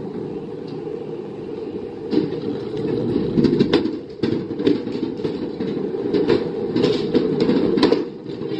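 Dark-ride car rolling along its floor track: a steady low wheel rumble, with a run of irregular clacks and knocks starting about two seconds in.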